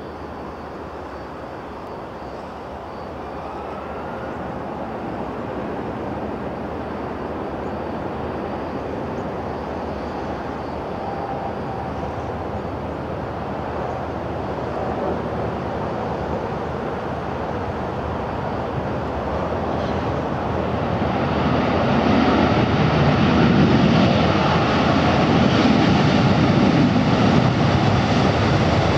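Boeing 737-800 jet engines (CFM56-7B) on landing: steady jet-engine noise that slowly grows louder. From about three-quarters of the way in, a heavier, louder low rumble sets in as the airliner rolls out along the runway.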